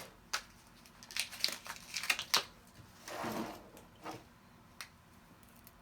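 Small items being handled on a table: a run of sharp clicks and taps, a brief rustle about three seconds in, then a couple of lighter ticks.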